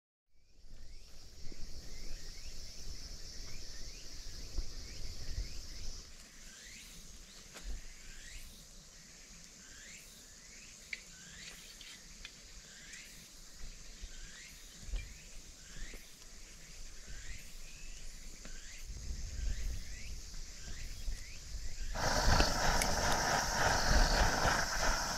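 Forest ambience: a steady high insect hiss, with a short falling call note repeating about once a second. Near the end a louder, steady rushing roar starts: a liquid-fuel camp stove burning under a pot.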